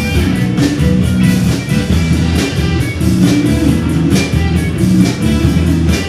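Live band playing amplified music: electric guitars over a drum kit keeping a regular beat.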